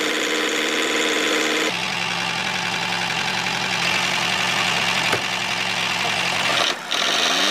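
Small electric gear motor of a homemade miniature toy tractor whirring steadily as it drives. The tone shifts about two seconds in, and there is a short dip near the end.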